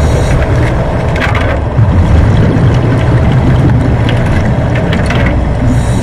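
A scuba regulator breathing underwater, heard from the camera housing. A hiss of inhalation comes near the start and again at the end, with low, loud bubbling of exhaled air between, and scattered crackles.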